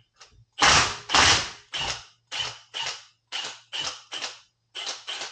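Impact driver working the Allen screws at the bottom of a Harley-Davidson Shovelhead's fork lower legs, fired in about ten short bursts, the first two longest and loudest, to break the screws loose.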